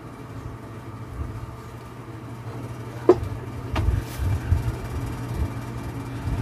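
Metal parts of a small gasoline engine being handled as its crankcase side cover is seated by hand: a sharp click about three seconds in and a few dull knocks just after, over a steady low hum.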